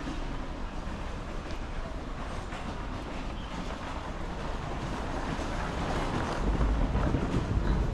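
Steady low rumble of a vehicle going by, growing louder about six seconds in, with wind on the microphone.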